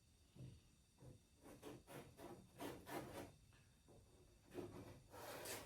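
Faint, irregular rubbing strokes of epoxy being spread over wooden wing parts.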